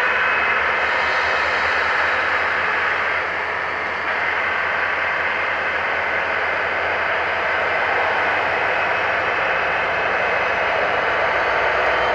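Heavy diesel engines running steadily, a continuous mechanical drone with a low hum beneath it.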